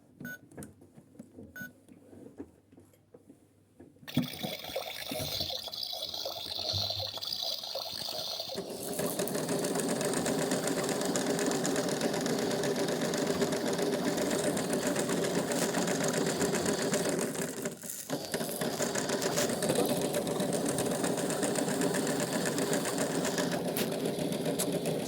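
Washing machine starting a wash programme: a few faint clicks, then about four seconds in a steady rushing sound begins, growing louder and fuller about nine seconds in, as water fills the machine and it runs.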